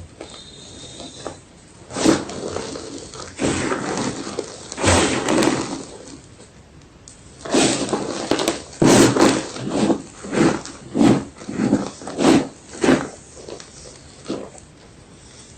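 White gym chalk being crunched: several longer crackly crunches, then a run of short, evenly spaced crunches about every half second.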